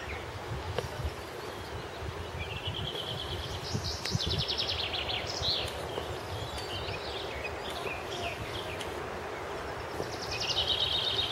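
Songbirds singing in the trees: short trills of quickly repeated high notes about two seconds in, about four seconds in, and again near the end, over a steady outdoor background hiss.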